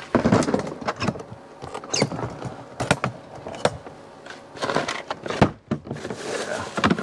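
Rummaging through plastic storage bins full of tools: an irregular run of clicks, knocks and rattles as items are shifted and the bin lid is handled, with a sharp knock about five and a half seconds in.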